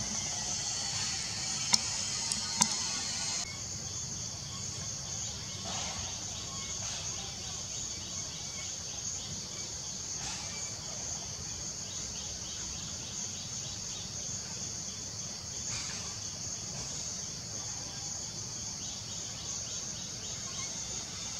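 Steady, high-pitched chorus of insects, with two sharp clicks about two seconds in.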